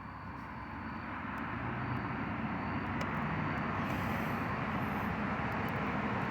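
Steady engine or traffic noise that grows louder over the first couple of seconds and then holds.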